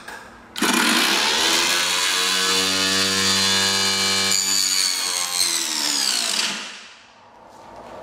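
Small prototype table saw switched on about half a second in, its motor and blade spinning up and then running with a steady whine. The sound changes about four seconds in as a thin panel is fed into the blade. Shortly before the end the pitch falls and the blade stops within about a second: the anti-kickback brake has stopped the blade on kickback.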